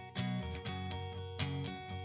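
Background music led by a plucked guitar, with notes struck in a steady rhythm.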